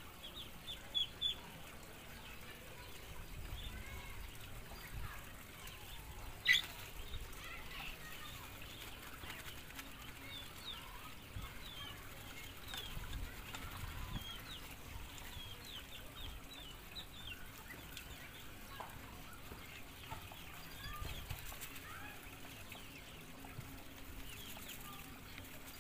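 Chickens in a farmyard clucking, with many short high peeps and chirps throughout. A few quick louder calls come about a second in, and one sharp call about six and a half seconds in.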